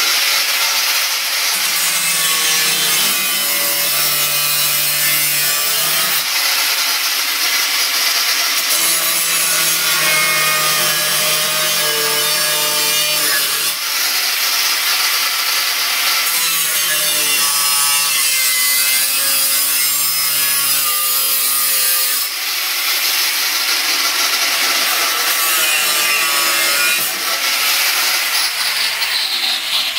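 Angle grinder cutting through the steel casing of a VW Golf 3 GTI rear silencer, a steady loud grinding with no breaks.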